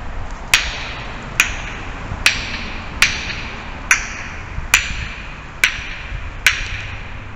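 Tongue clicks made with the mouth, eight sharp clicks at an even pace of a little under one a second. Each is followed by a short echo ringing back down a long, hard-walled tunnel corridor.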